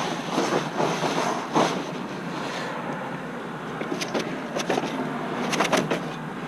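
Gas-powered Power Stroke 2200 PSI pressure washer at work: a steady hiss of high-pressure water spray hitting house siding over the running engine, with a few sharp crackles of spray about four seconds in and again near the end.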